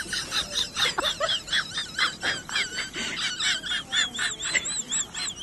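Many high-pitched animal chirps overlapping, turning in the second half into a steady run of short arched peeps, about three a second.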